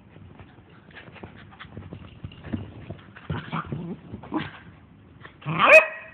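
Dogs playing on a couch: scuffling, a few short low vocal noises, then a loud, high, brief yelp near the end.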